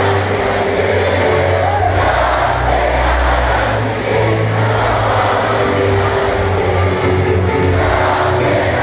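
Live Greek popular music from a band and male singer, played loud over the PA in a large hall and heard from among the audience, with a steady beat about twice a second.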